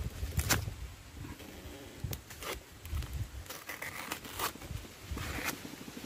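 A knife cutting and prising the tough outer sheath off a kithul (fishtail palm) flower spike: a string of sharp cracks and tearing sounds, several within a few seconds, over a low rumble.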